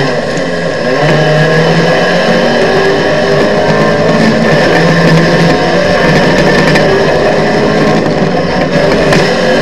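Off-road race vehicle's engine running hard under load, its note rising and dipping with the throttle.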